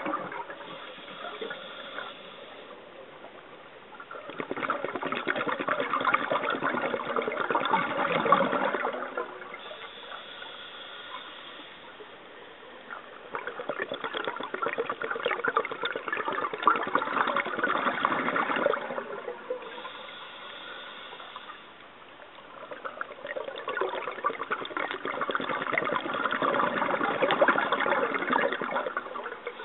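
Scuba diver breathing through a regulator underwater: three long rushes of exhaled bubbles, each lasting several seconds and coming about every ten seconds, with a quieter high hiss of inhalation between them.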